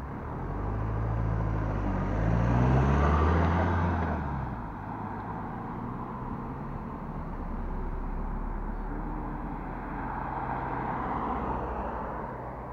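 Cars passing by on a road: one loud pass with engine drone and tyre noise swells and fades within the first few seconds, then two softer passes follow later.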